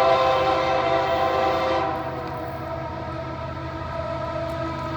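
Norfolk Southern freight train's locomotive horn howling, a chord of several steady notes, loud for about two seconds and then softer but still sounding, over the low rumble of its SD70ACe diesel locomotives.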